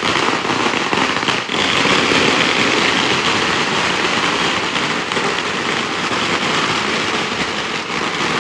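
A string of firecrackers going off in a rapid, continuous crackle, loud and unbroken.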